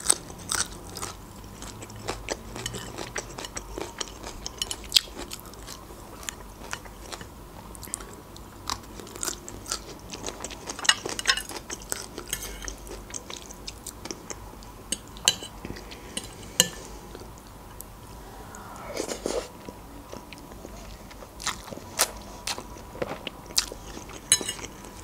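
Close-miked eating sounds: chewing with many short, wet mouth clicks and smacks scattered throughout, as spicy instant noodles are eaten.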